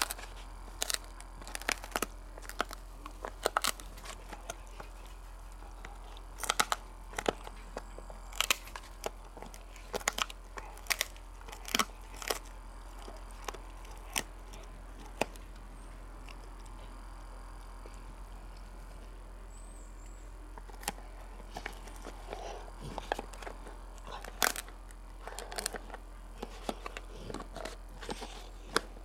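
Golden retriever chewing a hard, dried pig ear: irregular sharp cracks and crunches as its teeth bite into the ear, with a lull of a few seconds past the middle.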